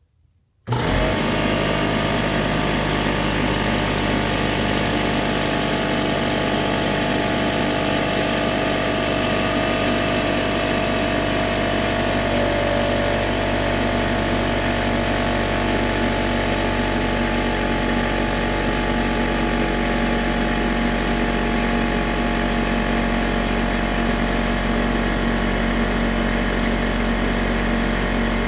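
Air compressor switching on about a second in and then running steadily, a loud, even motor noise with several steady hums.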